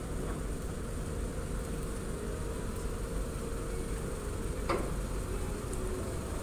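Steady low rumble of a docked ferry's engines and machinery, with a faint hum running through it. One short sharp squeak comes about three-quarters of the way through.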